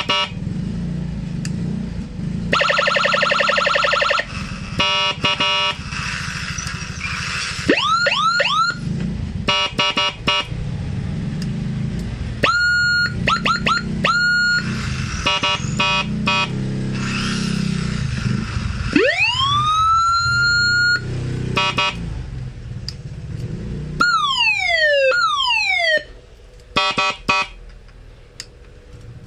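Dual-tone electronic siren module switching through its siren sounds: fast warbling trills, short repeated beeps, quick rising whoops, a long rising wail that levels off, and rapid falling sweeps near the end.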